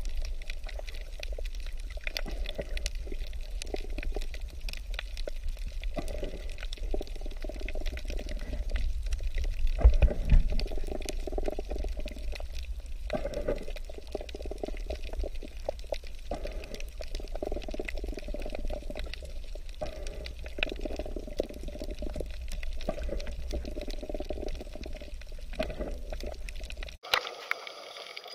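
Underwater sound through an action camera: water moving and sloshing around the camera, with a steady low rumble, uneven surges and scattered faint clicks. Near the end it cuts off suddenly and gives way to a thinner, quieter water sound.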